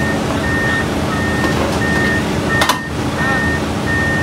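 Backup alarm beeping steadily at about one and a half beeps a second, over the steady drone of heavy diesel road-construction machinery running, with a single sharp clank about two-thirds of the way in.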